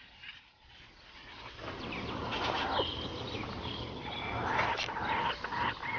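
Birds calling, with short high chirps starting about two seconds in, over scattered clicks and crunches.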